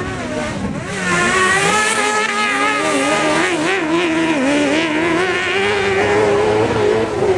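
Engine of a small off-road racing vehicle revving hard as it races over the dirt track, its pitch rising and falling with the throttle. It gets louder about a second in.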